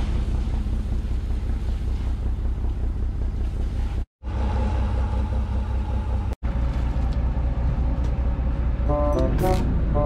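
Fishing boat's engine running, a steady low rumble that breaks off twice for an instant.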